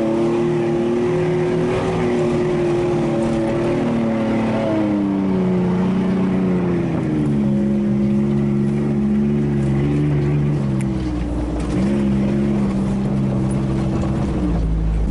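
Nissan Frontier pickup's engine heard from inside the cab while driving over sand. The engine note steps down in pitch about five seconds in and again around seven seconds, then rises near the end.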